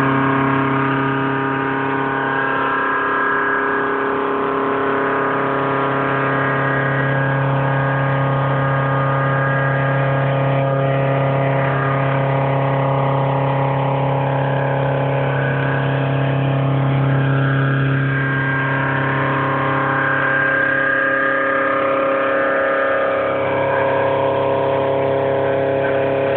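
CNC machine tool running steadily: a constant motor and spindle hum with whining upper tones that shift in pitch now and then as it moves.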